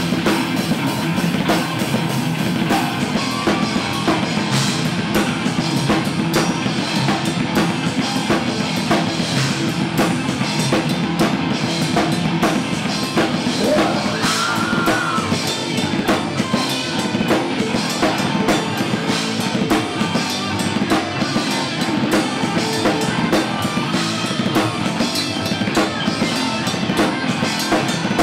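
Metal band playing live: electric guitar over a drum kit, loud and dense without a break.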